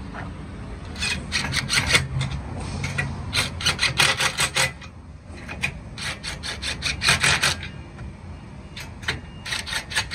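Cordless DeWalt impact driver hammering as it tightens nuts onto U-bolts, in about four bursts of rapid rattling impacts, each a second or so long, with short pauses between them.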